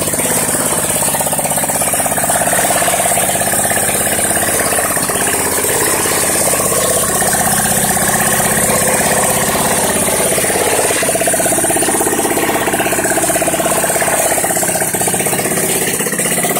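Yerf-Dog go-kart's small gas engine idling steadily.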